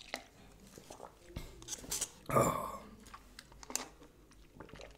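Mouth sounds of someone sipping a blended iced Frappuccino through a straw: small wet clicks and swallows, with one brief louder vocal sound about two and a half seconds in.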